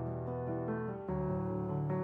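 Background instrumental music, with sustained chords changing about a second in.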